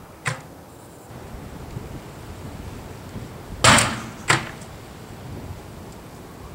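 A plastic pop bottle bursting inside a microwave oven: a loud bang about three and a half seconds in, followed about half a second later by a second, quieter sharp bang, with a short click near the start.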